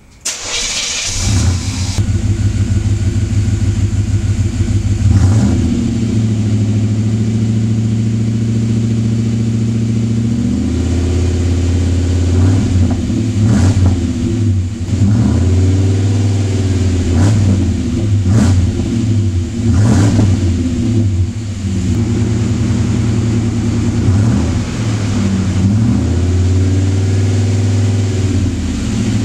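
Cadillac 6.0 V8 through MagnaFlow mufflers, freshly rebuilt and revved only lightly. It comes in suddenly with a brief rush of noise, runs steadily for several seconds, then is blipped up and back down again and again from about ten seconds in.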